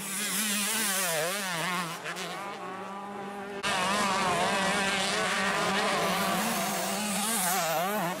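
Motocross dirt bike engines revving up and down as the throttle opens and closes. The sound drops back briefly, then cuts sharply back to full level about three and a half seconds in.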